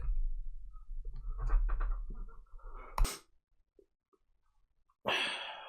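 Rustling and handling noise with a low rumble, then one sharp click about three seconds in, followed by dead silence: the camera recording being stopped and restarted. Near the end a short rush of room noise starts and fades as recording resumes.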